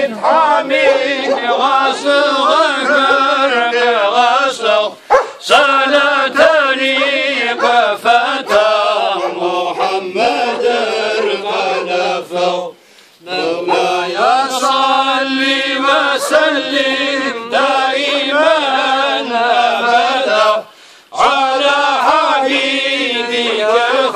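A men's ilahi group chanting a religious hymn together in long sung phrases, breaking briefly for breath about every eight seconds. A few short sharp clicks cut across the singing.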